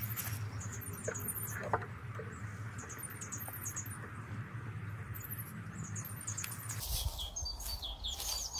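Outdoor ambience of small birds chirping in short, very high-pitched phrases, repeated several times, over a rustling patter. A low steady hum stops about seven seconds in, and footsteps in dry grass follow near the end.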